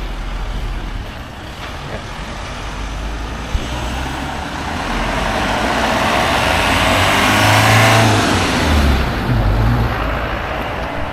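A road vehicle passing close by, its sound building over several seconds to a peak about eight seconds in, then fading away.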